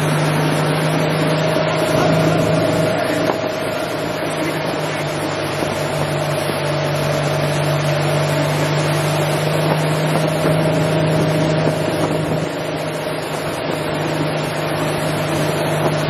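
Motorboat engine running at a steady speed: a constant drone with a rushing noise over it.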